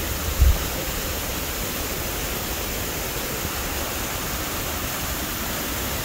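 Steady, even rush of a partly ice-covered waterfall pouring into an open pool. A brief low thump comes about half a second in.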